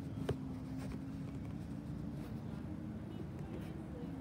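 Steady low engine hum, with a single sharp click about a third of a second in.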